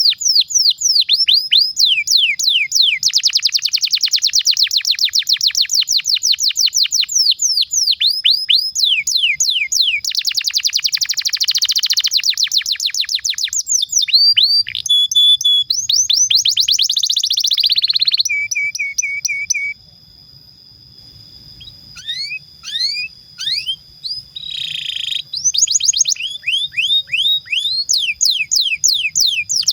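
Domestic canary singing a long rolling song: fast trills of rapid down-sweeping notes, dense buzzy passages and a long held whistle, with a short break a little past the middle before the trills start again.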